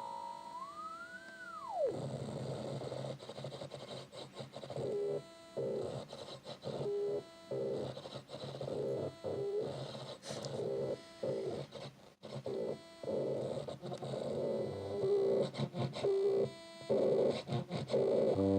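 Electronic synthesizer making glitchy sounds: in the first two seconds a pitch swoops up and then drops steeply, followed by a low steady drone under choppy, stuttering tones that cut on and off.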